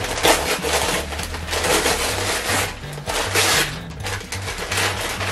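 Rustling and crinkling of the wrapping being pulled off a bunch of flowers, in repeated bursts, over background music with a stepping bass line.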